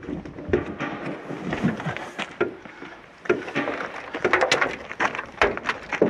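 Irregular clicking knocks and scrapes of a Labrador's claws and paws scrambling across the wing of a light aircraft, coming thickest about two thirds of the way through.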